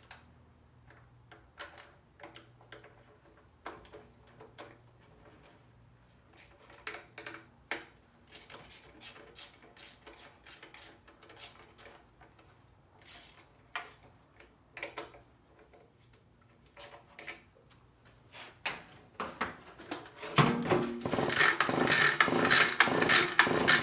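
Echo leaf blower's recoil starter being worked on: scattered light clicks and knocks of its small parts being handled. About 20 seconds in, a loud rattling stretch of a few seconds, which fits the pull cord being pulled with the freed starter pawl now engaging.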